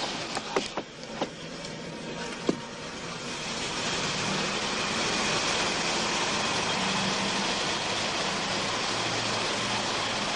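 Car engine running steadily as the car moves off, with a few sharp clicks in the first couple of seconds.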